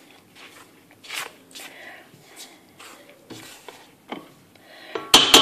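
A spatula stirring and scraping dry flour and nigella seeds in a stainless steel bowl, in soft scattered strokes. About five seconds in come a few sharp knocks on the bowl that leave it ringing briefly.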